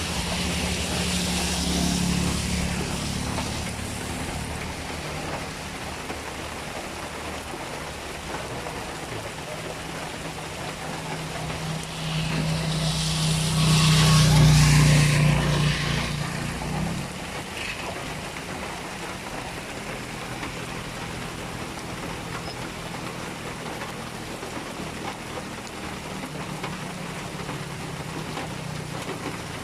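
Steady rain falling, with vehicles passing on the wet road: one fading away at the start, and a louder one swelling, going by about halfway through with a hiss of tyres on wet asphalt, then fading.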